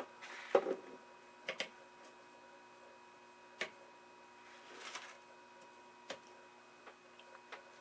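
Scattered clicks and light knocks of hands handling a CRT tester's socket cable and flipping its front-panel switches, with a brief rustle near the middle and a faint steady hum underneath.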